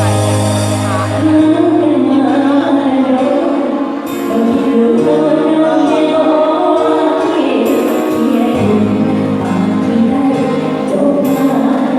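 Live band playing a Thai luk thung song, with a singer carrying the melody.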